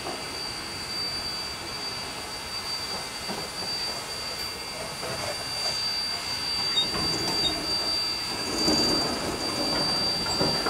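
Narrow-gauge steam train rolling on the track: steady rail and car noise with a few irregular knocks, over a steady high-pitched tone.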